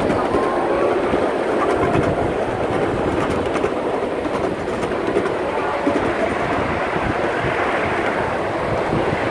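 Miniature ride-on railroad train rolling along its track, with a steady rumble and the small wheels clicking over the rails.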